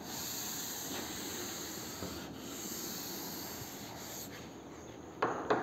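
Chalk writing being rubbed off a blackboard with an eraser: a steady, dry rub lasting about four seconds. Two short knocks follow near the end.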